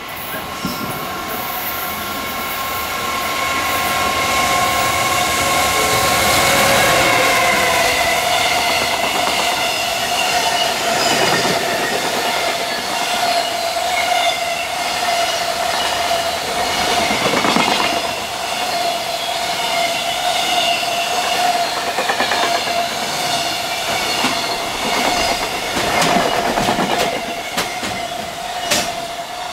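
A JR Freight container train passing at speed, its wheels running on the rails with a steady high whine and a few sharp knocks.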